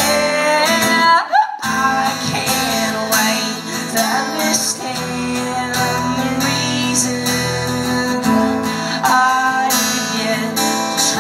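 Acoustic guitar strummed in a steady rhythm, with a brief dip in the sound about a second and a half in.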